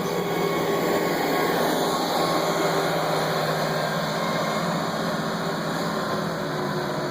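Heavy road-construction machinery working on asphalt milling runs steadily, a continuous noise with a low engine hum beneath it. It swells a little about a second in.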